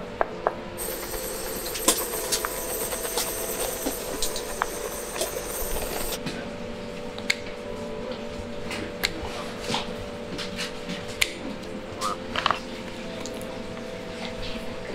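Kitchen blowtorch hissing for about five seconds as it singes the remaining feathers off a pigeon, then shut off sharply. Light clicks and knocks of handling follow over a steady low hum.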